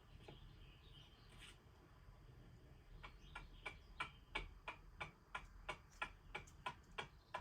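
Faint, sharp ticks in a regular series of about three a second, starting about three seconds in after near silence.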